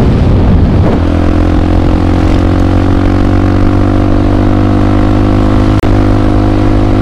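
Honda CRF150L's single-cylinder four-stroke engine running steadily at a cruising pitch while the bike is ridden along the road. The sound cuts out for an instant about six seconds in.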